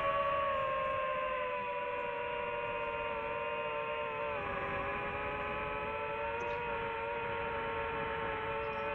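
DJI FPV drone's motors and propellers humming steadily in flight: several steady tones together, sagging slightly in pitch and stepping a little lower about four seconds in.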